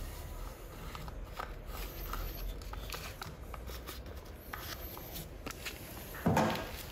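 Masking tape being pressed and smoothed by hand onto a steel pickaxe head: light crinkling and rubbing with scattered small clicks, then a dull thump about six seconds in.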